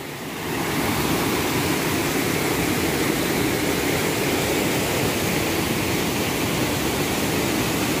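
Steady rushing of a small rocky waterfall, white water pouring over and between boulders; it grows louder about half a second in, then holds.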